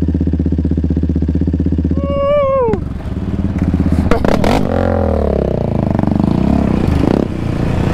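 Sport ATV engines: one idles steadily, a short drawn-out voice call sounds about two seconds in, then engines rev unevenly with rattling as the quads ride a rough dirt trail.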